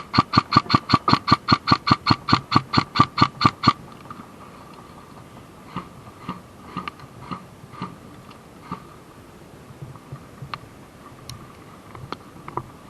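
Airsoft gun firing a fast burst of sharp, evenly spaced shots, about seven a second, stopping near 4 s, followed by scattered fainter single shots.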